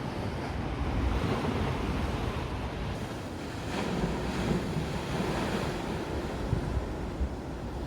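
Sea waves washing steadily on the shore, with wind rumbling on the microphone.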